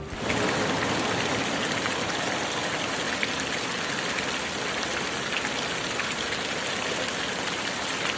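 Fountain water splashing down in a steady, even hiss.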